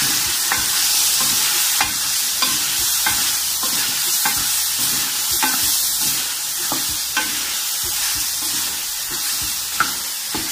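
Chicken, tomatoes and ground spices sizzling in hot oil in a metal pan while a wooden spoon stirs and scrapes it. A steady sizzle runs under irregular knocks and scrapes of the spoon against the pan, about one every half second to second. This is the bhuna stage of a chicken karahi, frying the masala and chicken together.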